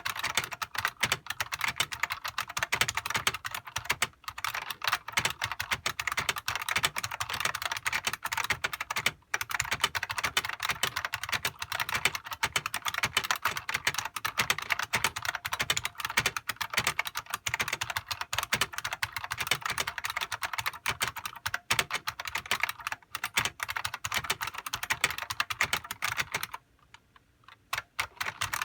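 Fast, continuous typing on a Unicomp Classic buckling-spring keyboard, each keystroke a sharp click. It pauses briefly twice and stops for about two seconds near the end.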